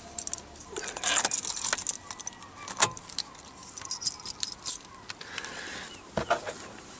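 A bunch of car keys jangling on their ring, loudest about a second in. A sharp click near three seconds in, then scattered lighter clicks and rattles, as the OBD diagnostic reader is unplugged from its port under the dashboard.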